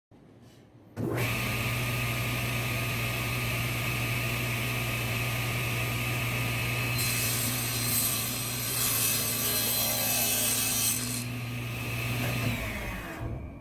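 Table saw running with a steady hum, starting about a second in. Midway the blade cuts through a wooden board, adding a harsher hiss for about four seconds. Near the end the saw is switched off and winds down.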